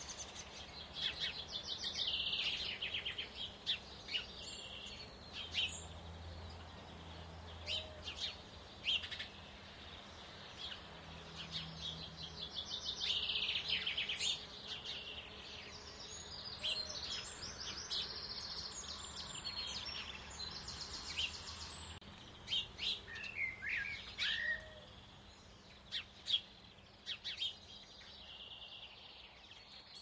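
Songbirds singing: bursts of fast trilled song a couple of seconds long, with short chirps between, thinning out near the end.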